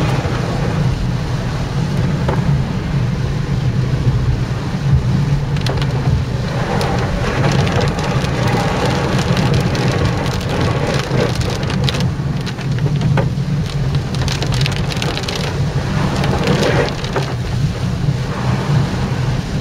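Heavy typhoon rain and wind: a steady low rumble with a dense wash of rain over it and scattered sharp patters and ticks throughout.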